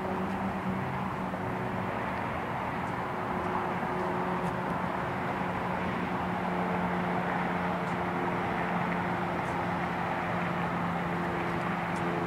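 Steady road traffic noise with a low engine hum that holds throughout, changing only slowly in pitch.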